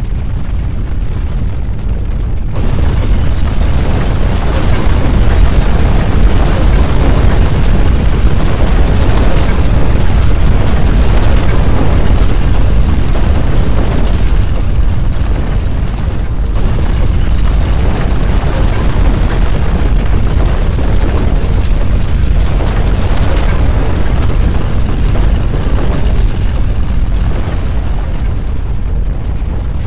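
Loud, continuous deep rumbling with crackling and rattling, the sound of violent earthquake shaking. It swells suddenly about two and a half seconds in and keeps going.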